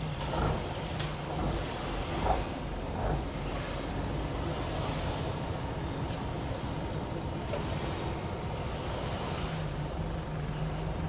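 Fishing boat's engine running steadily, a low even drone, with a few short high squeaks.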